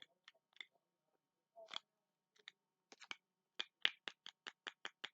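Snapper fidget toy clicking repeatedly: a few scattered snaps at first, then from about three seconds in a quick run of about four to five clicks a second.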